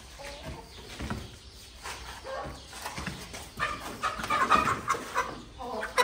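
Chickens clucking, in short scattered calls that get busier past the middle.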